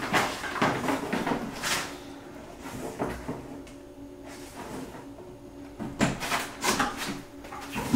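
Irregular knocks, scrapes and rattles of a shop vacuum's hose being handled and dragged about, with a louder run of clatter about six seconds in.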